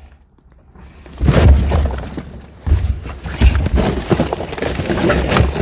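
Junk being rummaged through and shifted about: loose debris clattering and crackling, with heavy thumps and knocks, starting about a second in after a brief hush.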